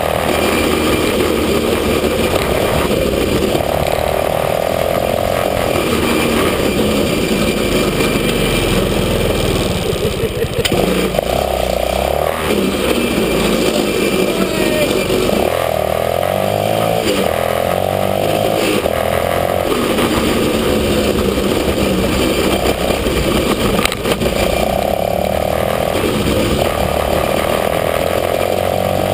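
Small engine of a kids' Chinese ATV running under way, revving up and easing off again and again with the throttle.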